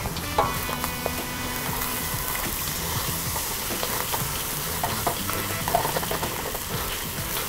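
Fried rice with prawns sizzling in a hot wok while a wooden spatula stirs and tosses it, with a few short scrapes and knocks of the spatula against the pan.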